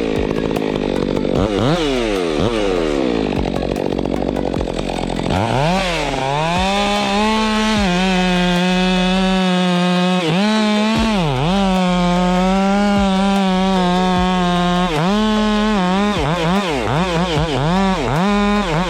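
Two-stroke chainsaw engine running at high revs. Its pitch dips and recovers again and again as the chain loads up in the cut, and the dips come quick and close together near the end.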